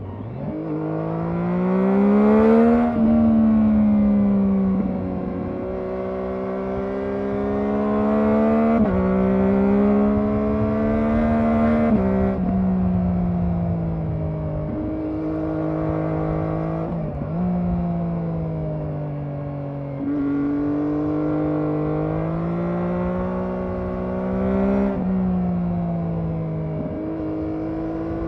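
Triumph Daytona 675R's inline three-cylinder engine on its stock exhaust, revving up through the gears: the pitch climbs, then drops suddenly at each shift, with a few quick dips and rises as the rider slows and picks up again. A low rush of wind runs underneath.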